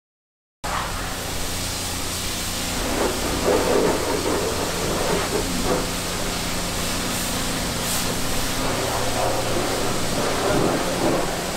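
Steady hiss over a low machine hum, the background noise of a self-service car wash, starting abruptly about half a second in.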